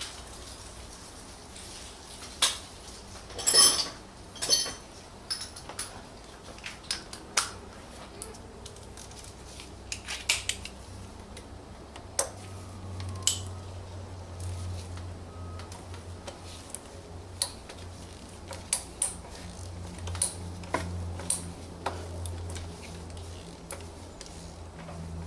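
Metal hand tools clinking and clicking at irregular intervals as a 32 mm socket and wrench are fitted to and worked on the oil filter housing cap of a diesel VW Golf TDI, with the loudest rattle of clicks about three and a half seconds in. A low steady hum comes up about halfway through.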